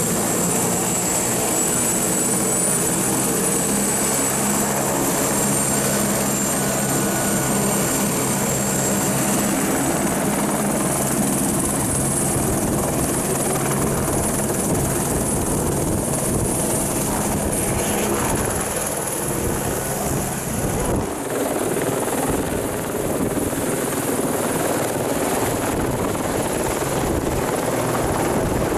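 Airbus H125 helicopter running at close range: a steady high turbine whine that rises slowly, over the beat of the main rotor. About halfway through the rotor sound turns rougher as the helicopter powers up and lifts off.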